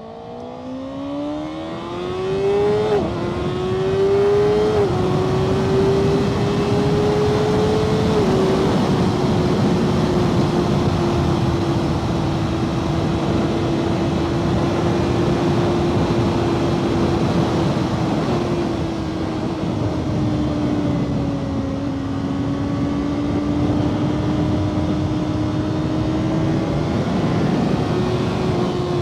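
Kawasaki ZX-6R 636 inline-four accelerating hard through the gears: the engine note climbs and drops sharply at upshifts about three, five and eight seconds in, then holds steady at speed with a small dip and rise later on, under heavy wind noise. It pulls through each gear without the clutch slipping, with the clutch cable freshly readjusted for new shorty levers.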